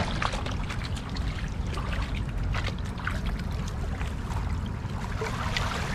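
Water trickling and lapping at the riverbank over a steady low rumble, with scattered small splashes and ticks.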